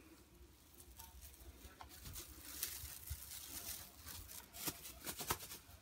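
Metallic tinsel streamers of a cat wand toy rustling and crinkling as a kitten bats at them. The sound is faint and busiest from about two seconds in, with a few sharp clicks near the end.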